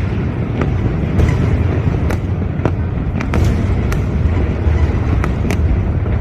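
Fireworks going off: about ten sharp bangs and cracks spread irregularly over a steady low rumble.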